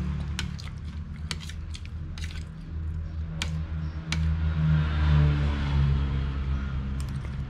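Metal spoon clicking against a ceramic soup bowl, a handful of sharp separate clinks, over a steady low hum that swells a little past the middle.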